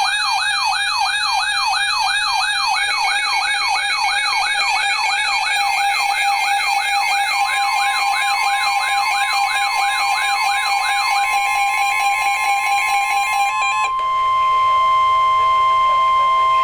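Electronic weather-alert alarm tones: a fast siren-like warble sweeping up and down about two and a half times a second over steady tones, which stops about eleven seconds in. A steady alert tone goes on alone, loud, to the end; it is typical of the NOAA Weather Radio 1050 Hz warning-alarm tone that comes before a warning message.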